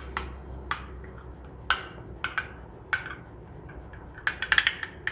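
A spoon clinking against the side of a glass bowl while stirring yogurt with a spice paste: single clinks roughly a second apart, then a quick run of clinks near the end.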